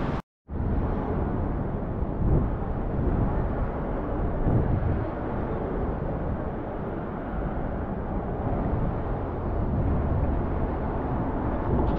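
City street ambience: a steady low rumble of road traffic. The sound drops out completely for a moment just after the start.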